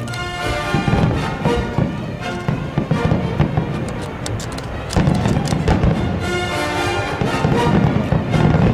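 Music playing loudly, mixed with the bangs and crackles of a fireworks display, with heavier low booms about a second in, midway, and near the end.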